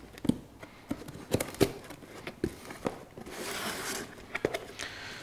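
Cardboard box and packaging being handled and opened: scattered sharp clicks and knocks, with a stretch of rustling a little past the middle.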